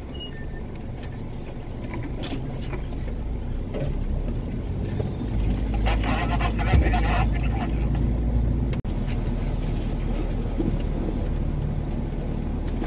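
Off-road vehicle engine running at low speed on a rough forest track, with branches and brush scraping along the vehicle for a moment around the middle. The sound cuts out very briefly about two-thirds through.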